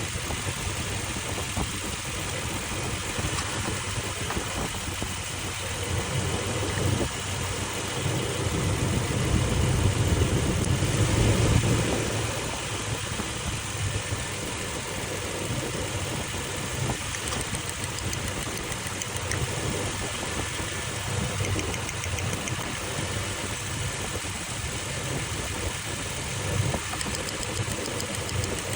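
Toyota Land Cruiser engine idling while it is checked for a misfire. It grows louder for a few seconds about eight seconds in, then settles back to a steady idle at about twelve seconds.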